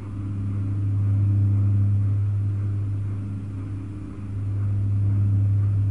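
Steady low electrical hum with a few overtones, dipping briefly in level about four seconds in.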